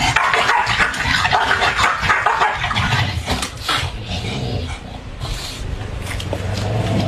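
Two young dogs growling and snapping at each other as they square off in a scuffle, with yips among the growls.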